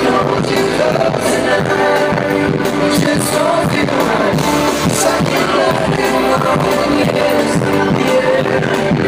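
Live pop band playing a song with singing over a steady drum beat, heard through a phone's voice-memo microphone in a large arena.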